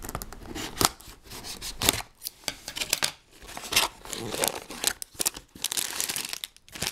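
Scissors snipping the seal of a Lego set's cardboard box, then the flap tearing open. Plastic bags of parts crinkle as they are pulled out, with a busy crinkling stretch in the second half.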